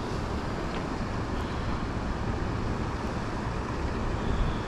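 Wind buffeting the microphone: a steady rushing noise, heaviest and most uneven in the low end.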